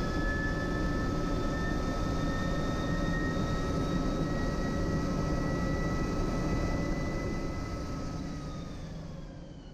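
GreenGT MissionH24 hydrogen fuel-cell electric prototype race car running at speed, a steady high whine from its electric drive and fuel-cell compressor over wind and road noise, one whine rising slightly. The sound fades out near the end.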